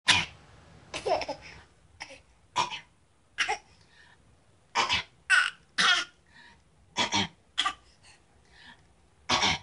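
An eight-month-old baby making playful fake coughs, about a dozen short bursts spaced half a second to a second and a half apart, mixed with giggly laughter and babbling.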